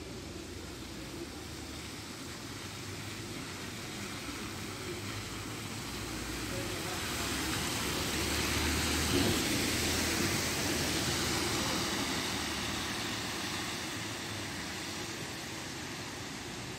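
Articulated city bus driving past on a wet street: engine hum and tyre hiss on the wet road. It grows louder as it passes close about eight seconds in, then fades as it pulls away.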